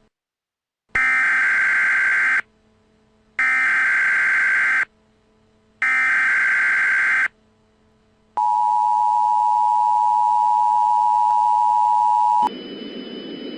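Emergency Alert System tones: three identical bursts of the SAME digital data header, each about a second and a half long with a second's gap between them. Then the steady two-tone EAS attention signal sounds for about four seconds and cuts to a faint hiss near the end.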